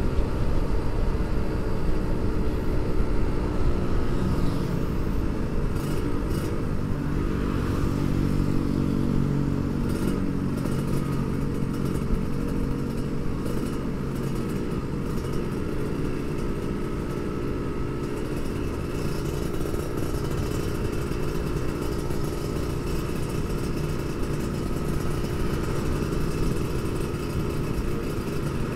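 Kawasaki Ninja RR motorcycle engine running under way at cruising speed, heard from the rider's seat with wind rushing past. The engine note holds fairly steady, shifting a little in pitch with the throttle about a third of the way in.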